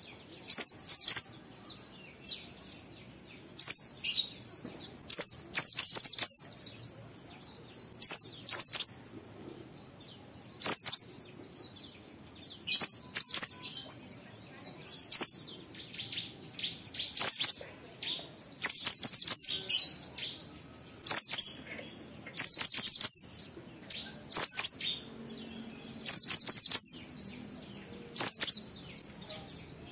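White-eye (pleci) singing in the 'ngalas' style: short bursts of rapid, high chirping notes, repeated every second or two with brief pauses between.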